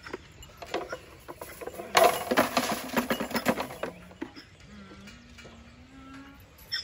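A loud rattling clatter lasting about two seconds, then a goat bleating in one long call that slowly rises in pitch.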